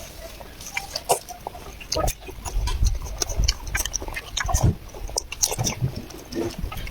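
A child eating close to the microphone: irregular chewing and lip-smacking clicks, with dull low thumps about two to three and a half seconds in.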